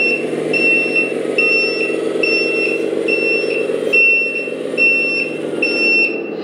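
Electronic beep from an RC truck's sound module, repeating a little more than once a second and stopping near the end. It plays over the module's simulated truck engine running steadily.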